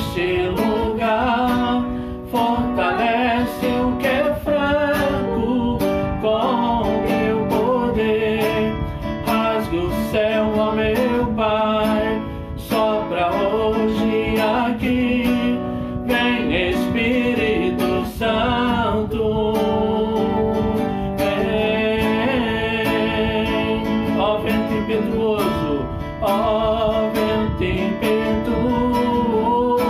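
Acoustic guitar strummed steadily, accompanying voices singing a worship song.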